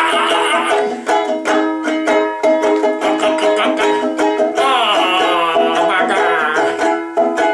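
Ukulele strummed fast and continuously, with no singing. About five seconds in, a high, wavering pitched sound glides down and back up over the strumming for about two seconds.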